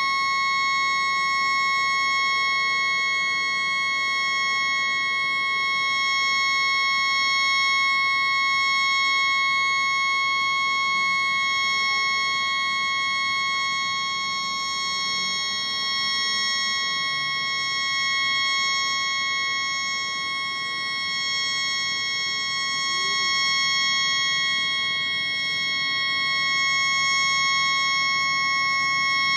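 A stuck tugboat horn sounding without a break, a steady chord of high tones. The recording is sped up fourfold, which raises the horn's pitch. The horn has malfunctioned and will not shut off.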